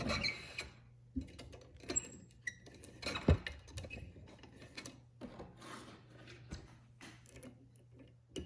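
A lock pick and tension wrench working the pin stack of a Defiant single-cylinder deadbolt core: scattered small metallic clicks and light scraping, with one sharper click about three seconds in.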